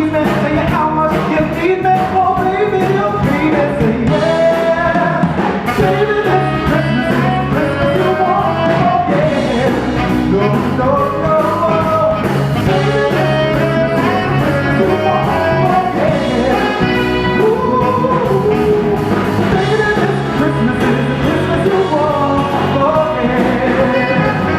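A live singer and band playing an upbeat Christmas pop song, the voice over steady band backing with brass.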